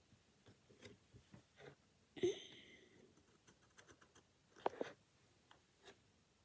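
Pen handling on paper: a short line drawn with light scratching and tapping, scattered faint clicks, and two sharper knocks, one about two seconds in and one near five seconds.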